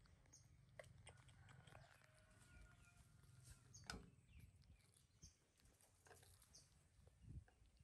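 Near silence: faint outdoor background with a few short high chirps spaced a second or two apart and scattered small clicks and taps, one sharper click about four seconds in.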